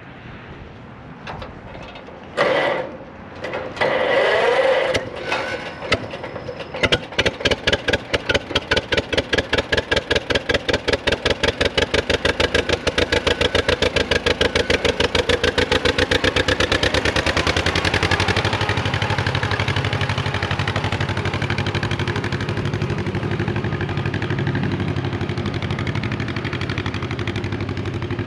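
John Deere M's two-cylinder engine being cranked over in a few short bursts, catching about seven seconds in. It fires in an even beat that quickens, then settles into a smoother, steady run.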